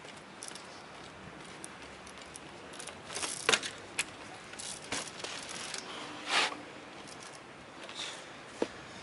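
Trials bicycle hopping across boulders: scattered sharp knocks and clicks as the tyres, rims and drivetrain land on stone, with a short scraping hiss about six seconds in.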